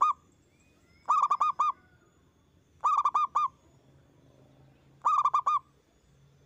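Zebra dove (perkutut) cooing loudly: three phrases about two seconds apart, each a quick run of four or five short, clipped notes, with the tail of another phrase at the very start.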